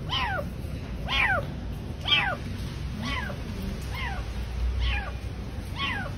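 Kitten trapped behind closed lift doors meowing over and over, seven meows about a second apart, each rising then falling in pitch.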